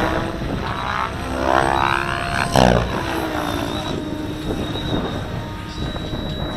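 Compass 7HV radio-controlled helicopter in flight: its rotor sound rises in pitch for about a second, then a sudden loud whoosh comes about two and a half seconds in, with the pitch dropping after it.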